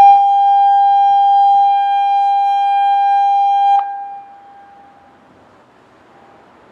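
Genasys LRAD DS-60XL speaker array sounding a steady single-pitch alert tone as part of a warning-system test. The tone cuts off abruptly about four seconds in, and its echo dies away over the next second, leaving only faint background noise.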